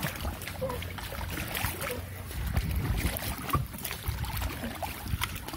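A small boat moving through still floodwater: low rumbling water and lapping against the hull, with a few short knocks.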